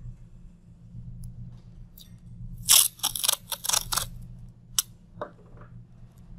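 Masking tape being pulled off the roll in a quick series of crackling rips about three seconds in, followed by a sharp click and a short knock as the strip is torn and handled.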